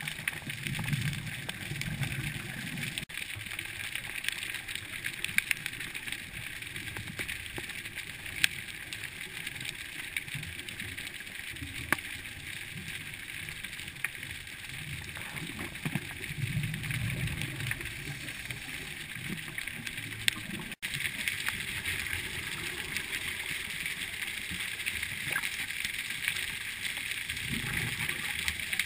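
Underwater sound through a diving camera: a steady hiss with scattered sharp clicks, and low bubbling rumbles at the start, in the middle and near the end from a scuba diver's exhaled regulator bubbles.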